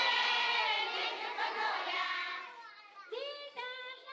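A group of children's voices sounding together, thinning out about two and a half seconds in to a few single high voices.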